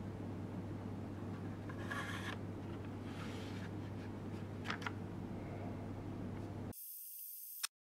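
Thin laser-cut wooden layers being slid and settled onto one another, with two short rubbing scrapes and a couple of light wooden clicks over a steady low hum. Near the end there is a brief hiss, a single click, then silence.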